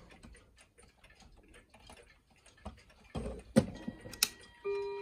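Several pendulum wall clocks ticking together. About three seconds in come a few sharp knocks as a clock case is handled, and near the end a clock starts striking with a ringing chime tone: the clocks beginning their noon strike.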